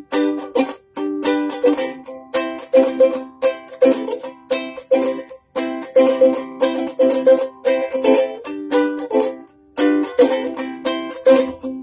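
Strong Wind mahogany soprano ukulele with nylon strings, strummed in a steady rhythm of chords, with two brief pauses.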